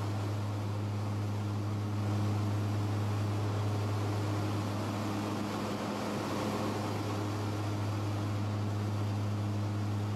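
Twin Garrett TPE331 turboprop engines of a CASA C-212 Aviocar in cruise flight, heard inside the cockpit: a steady low drone with a deep hum and a rushing hiss over it.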